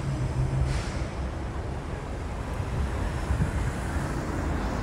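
Street traffic: a motor vehicle's engine running close by, with a steady low rumble and a short hiss under a second in.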